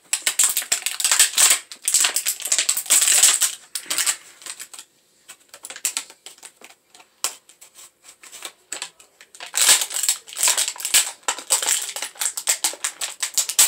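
Plastic packaging crinkling and crackling as small toy parts are handled and unwrapped, in two spells of dense crackling with a sparser stretch of scattered clicks between.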